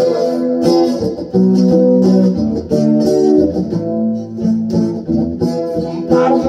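Guitar strummed and picked through an instrumental passage of a slow country-blues song: held chords with steady strikes on the strings. A man's singing voice comes back in right at the end.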